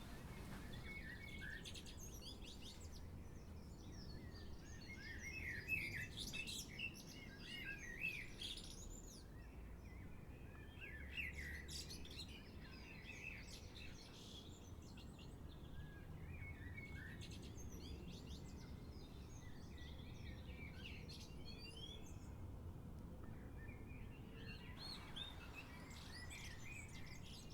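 Birds chirping in short, scattered bursts of high calls, busiest in the first half and again near the end, over a faint low background rumble.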